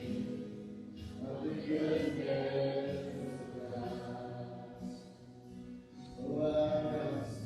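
Group of voices singing a Christian worship song together over a sustained musical accompaniment, in phrases that swell and fade.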